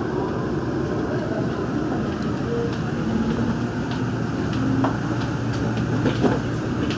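Cabin noise of a Daegu Metro Line 3 monorail train pulling out of an elevated station and gathering speed: a steady rumble and hiss with brief humming motor tones at changing pitches and a few light clicks.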